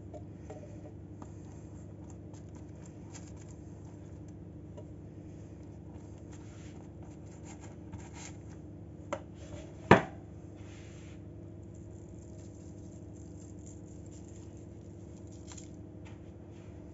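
Silicone pastry brush dabbing and rubbing oil onto the crusts of baked bread rolls, faint soft scratching strokes over a steady low hum. A sharp knock about ten seconds in, of the brush or oil tin against the tray, is the loudest sound.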